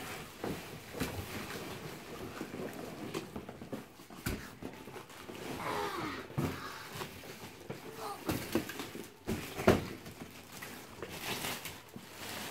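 Large cardboard box being opened and handled: flaps rubbing and rustling, with scattered knocks and one sharper knock about three-quarters through. A child's voice calls out briefly near the middle.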